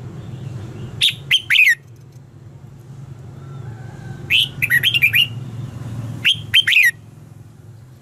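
Red-whiskered bulbul singing three short phrases of quick whistled notes, about a second, four seconds and six seconds in, over a steady low hum.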